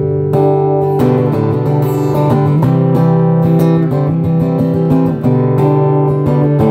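Breedlove Discovery parlor-body acoustic guitar strumming chords, played through a Yamaha Stagepas 600i PA with no effects or mixing: its dry, unprocessed sound.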